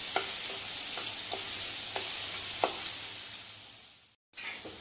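Crushed garlic frying in hot oil with dried red chillies and tempering spices in a kadai, sizzling steadily, with a perforated steel spatula stirring and clicking against the pan several times. The sizzle fades after about three seconds, cuts out briefly, and comes back quieter.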